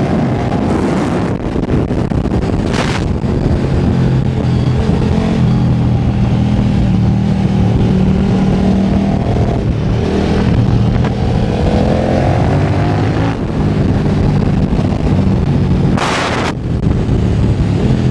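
KTM 1290 Super Duke R's V-twin with a full Akrapovič titanium exhaust, heard from onboard at speed, its pitch rising and falling as the rider works the throttle through the bends. A few short rushes of noise cut in, the longest near the end.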